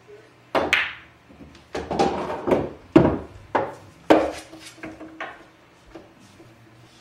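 Pool balls clacking on a pool table: the cue tip striking the cue ball and balls knocking into each other and the cushions, in a string of sharp clicks and knocks with the loudest near the middle.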